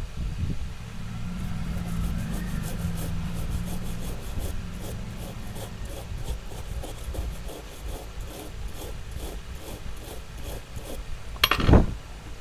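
A small brush scrubbing the freshly soldered charging-jack pads on a mobile phone's circuit board with petrol to clean off the solder residue, in quick even strokes of about three a second. A single sharp knock near the end.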